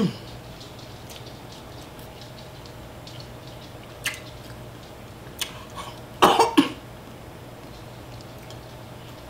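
A person coughing in a quick burst of two or three coughs about six seconds in, brought on by very spicy chicken. Otherwise only faint clicks of eating over a steady low hum.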